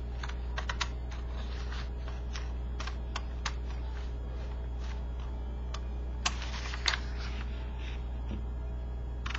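Irregular light clicks and taps, a few a second and some in quick pairs, over a steady low electrical hum.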